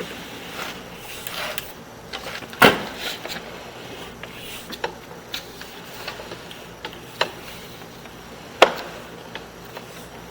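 Irregular knocks and clunks from a sewer inspection camera and its push cable being pulled back through a drain pipe. The loudest knock comes about two and a half seconds in, with two more sharp ones near the end and lighter ticks between.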